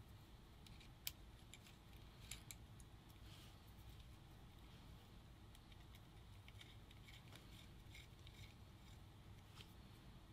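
Near silence with faint, scattered small clicks of a paintball marker's frame and parts being handled and fitted back together, a cluster of them past the middle.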